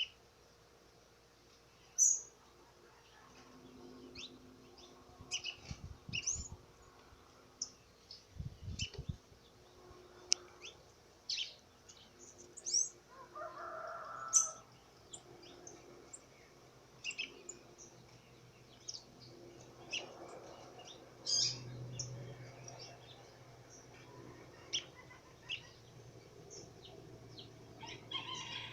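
Birds chirping with many short, high calls scattered throughout, with a few low thumps around six and nine seconds in.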